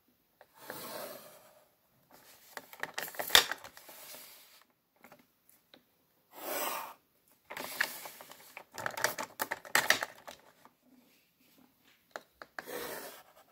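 Pencil scratching out straight lines on paper along a drafting machine's plastic ruler, in several short strokes, with sharp clicks and knocks as the rulers are moved and set between strokes.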